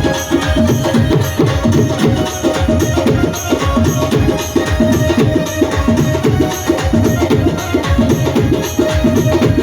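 Loud music with a fast, steady percussion rhythm over a held note.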